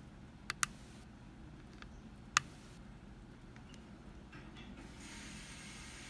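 Small sharp metallic clicks as a lock pick works the pin stacks of an American 1205 padlock under tension. There are a few scattered ticks, two close together about half a second in and the loudest about two and a half seconds in.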